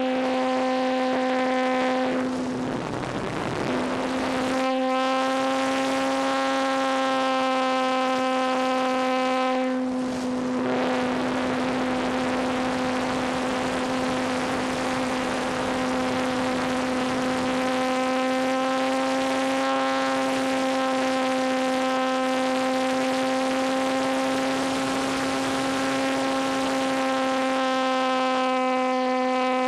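ParkZone T-28 RC plane's electric motor and propeller running at a steady high-pitched whine, heard from on board with wind rush over the microphone. The whine eases briefly twice, about three seconds in and about ten seconds in.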